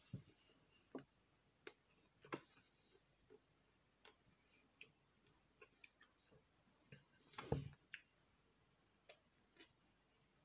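Near silence broken by faint, scattered mouth clicks and smacks of someone eating an ice cream bar, with one slightly louder smack about seven and a half seconds in.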